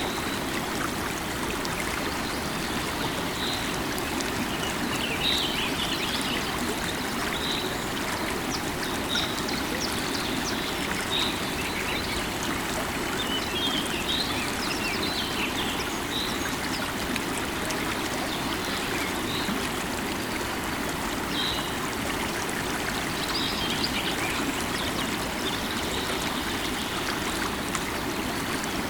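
River water running steadily over rocks, with a bird repeating a short high call about every two seconds and a few brief bursts of chirping.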